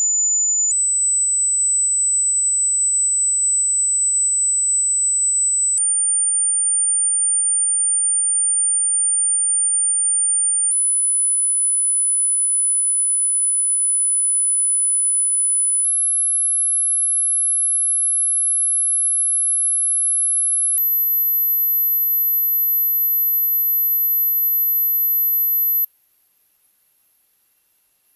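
Hearing-test sine tones: a single pure, very high steady tone that steps up in pitch about every five seconds, climbing through the upper range of human hearing. Near the end the level drops sharply, leaving the next, highest tone barely audible.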